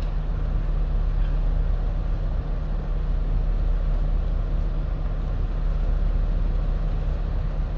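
A diesel engine running steadily at low revs: an even, low hum that does not change.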